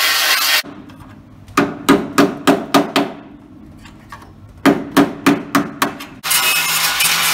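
Angle grinder cutting the steel of a car's rear wheel arch stops just after the start. Then come two runs of about six sharp, ringing metal blows, a hammer driving a screwdriver like a chisel to split the arch molding off the inner wheel arch. The grinder starts again near the end.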